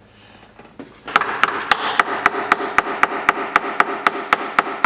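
Hammer tapping on a stamped-steel valve cover, about four even strikes a second for about four seconds, the metal ringing between strikes. This is done to break the cover's blue RTV silicone seal loose.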